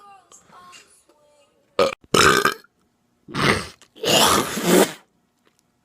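A person burping loudly: a short burp about two seconds in, then a longer, drawn-out burp lasting about a second and a half.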